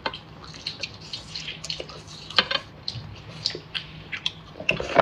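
Close-up wet chewing and lip-smacking of someone eating lobster meat. It is a string of short smacks and clicks, with louder ones about two and a half seconds in and near the end.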